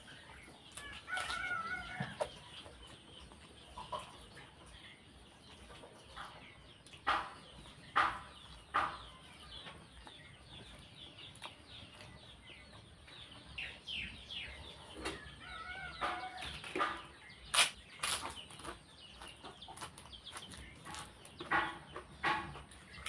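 Close-up eating sounds: fingers working rice and curry on a plate and wet chewing, with sharp smacks and clicks. A chicken clucks in the background twice, about a second in and again about fifteen seconds in.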